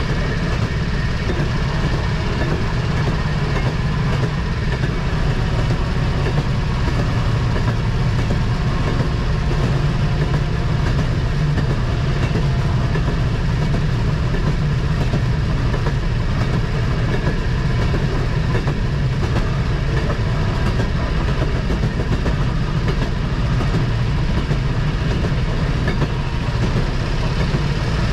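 Rail motorcar (speeder) running along the track: a steady engine drone with wheel noise on the rails.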